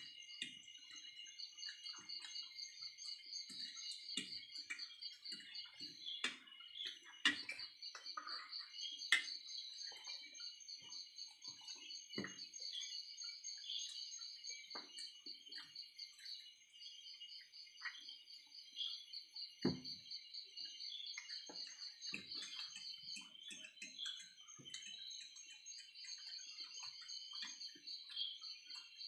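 Steady high, fast-pulsing chirping of crickets, with scattered light clicks and knocks of forks on plates.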